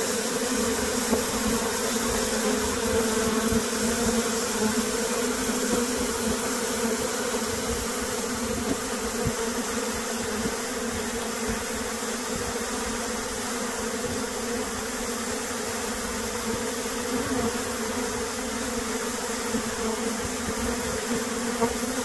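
A honey bee swarm pouring out of a hive entrance: the wings of thousands of bees make a dense, steady hum with a low drone and a higher overtone, close to the microphone.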